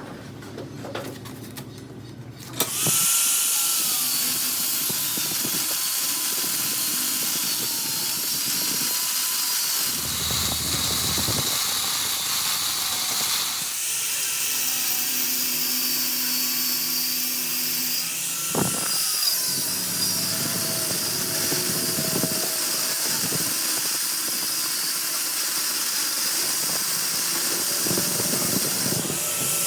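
Electric power tool working metal: it starts about three seconds in and runs steadily, with a strong high hiss and a motor whine that dips and recovers as it takes load, and one sharp knock partway through.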